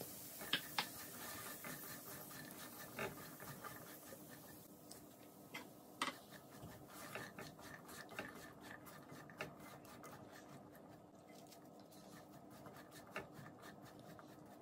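Silicone spatula stirring and scraping black chickpeas and chopped vegetables around a nonstick frying pan, with scattered light taps against the pan, loudest about half a second and six seconds in. A faint sizzle fades out after about four seconds.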